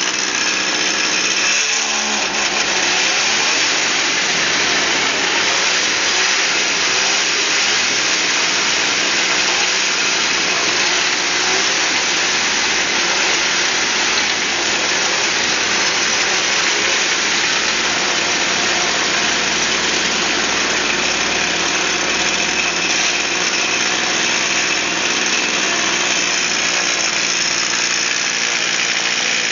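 Two-stroke chainsaw engine driving a home-built scooter, running loud and steady, with a brief shift in pitch about two seconds in.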